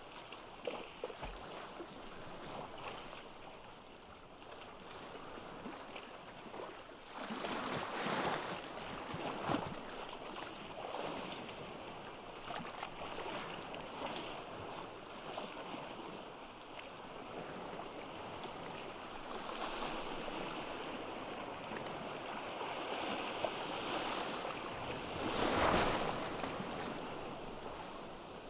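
Ocean waves breaking on a beach: a steady wash of surf that swells as larger waves break about eight seconds in and again, most loudly, near the end.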